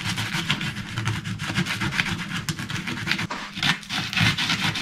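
A garlic clove rubbed hard back and forth over a slice of toasted Kalamata olive sourdough: rapid, repeated rasping scrapes as the rough toast grates the garlic like a grater.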